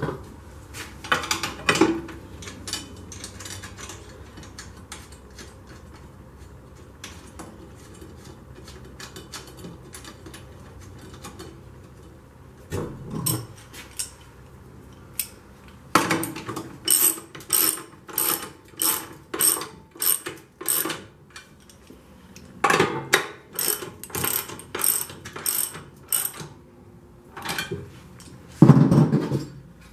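Hand ratchet wrench clicking in two runs of rhythmic strokes, about two a second, tightening the nuts that hold a steel battery lock bar to its anchor bolts. A few knocks of metal parts being handled come before it.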